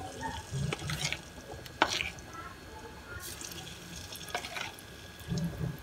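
Batter-coated chicken pieces dropped into hot oil in an iron kadhai, the oil sizzling softly, with a few sharp clicks as pieces go in.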